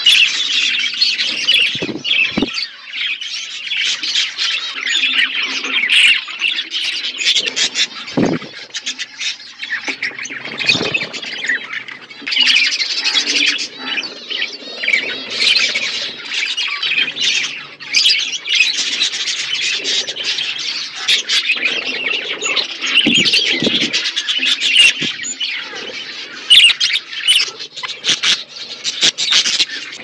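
A flock of budgerigars chattering nonstop: a dense mix of quick chirps, warbles and squawks. A few brief low thumps are heard here and there.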